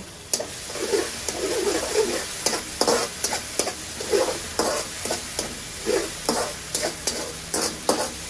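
A spatula stirring and scraping around a stainless-steel wok, about two strokes a second, over the steady sizzle of onion, tomato and green chilli frying in oil.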